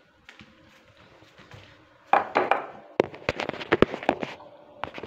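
Sharp clicks and knocks of things being handled: a short scraping rustle just past two seconds, then a quick run of about ten clicks a second later, and one more near the end.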